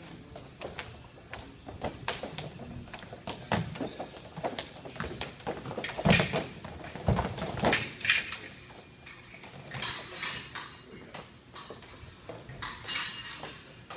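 Fencing footwork: shoes squeaking and feet stamping on the strip as two fencers advance, retreat and lunge, with a cluster of loud thuds and knocks around the lunge in the middle. A steady high beep sounds for about a second shortly after.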